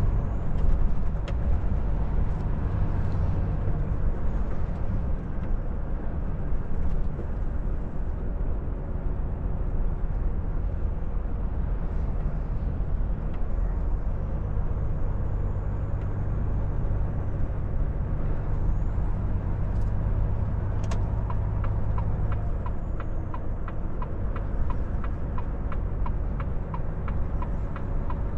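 Volvo FH460 truck's six-cylinder diesel engine running steadily under way, heard from inside the cab with tyre and road noise. About two-thirds of the way in, a steady, even ticking starts and keeps going, the cab's turn-signal indicator.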